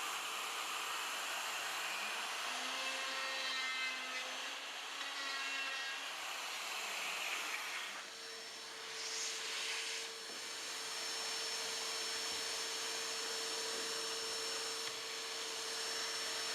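Black & Decker router with a straight bit running with a steady high whine while it cuts a hole in wood through a template guide. The whine drops out for a moment about seven seconds in, then comes back.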